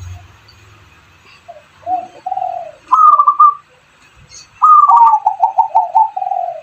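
Doves cooing, the kind kept as perkutut (zebra dove) and derkuku (spotted dove). About two seconds in come a few low, falling coos. These are followed by higher calls broken into quick stuttering notes, one short phrase about three seconds in and a longer run from just before five seconds.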